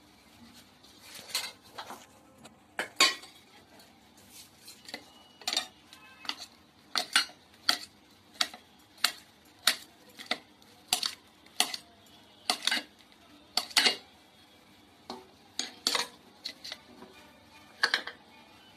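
Kitchen knife clinking against a stainless steel bowl as a peeled red banana is cut into pieces over it: a couple of dozen short, sharp clinks at an uneven pace, one or two a second.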